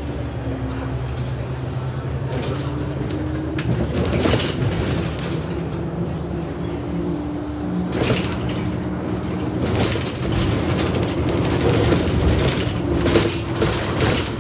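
Bus running, heard from inside: a steady low engine hum whose note shifts about eight seconds in. Over it come rattles and clatter from the bodywork and fittings, loudest around four seconds and again in a run of jolts over the last few seconds.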